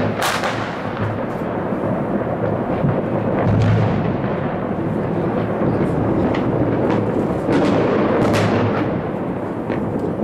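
Many fireworks and firecrackers going off at a distance all over a city: a continuous rolling rumble of overlapping bangs with sharper cracks popping out at irregular intervals.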